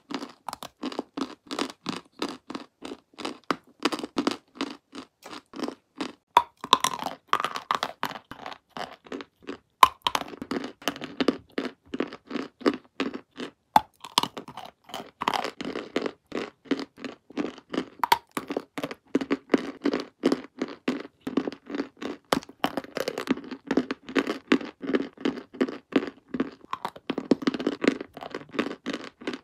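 Close-miked chewing of dry clay chunks: a crunch with every chew, about three a second, with a few sharper cracks as fresh pieces are bitten off.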